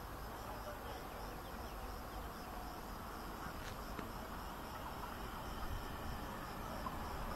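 Faint outdoor ambience: insects chirping steadily in a high, pulsing trill over a low even rumble.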